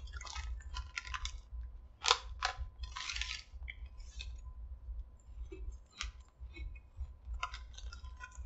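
Crunchy cinnamon cereal squares being chewed, as irregular crisp crunches, mixed with the crinkle of the foil snack bag as more pieces are taken out of it.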